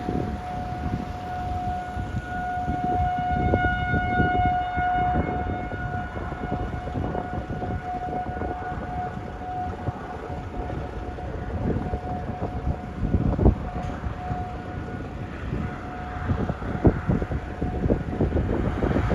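Outdoor warning siren sounding for a tornado, one steady tone that swells loudest a few seconds in, then fades and returns. Wind gusts buffet the microphone throughout.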